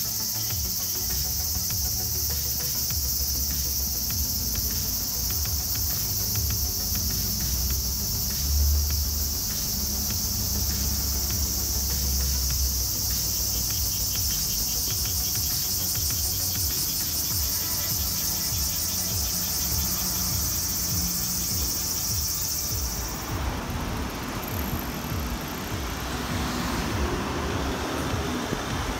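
A loud, steady chorus of cicadas buzzing in the trees. About 23 seconds in it cuts off abruptly and gives way to the duller hum of street traffic.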